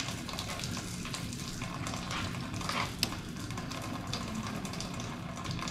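Fuel pouring out of an opened fuel line at the fuel filter and splattering below in a steady hissing spatter. A couple of short clicks come near the middle as the fitting is handled.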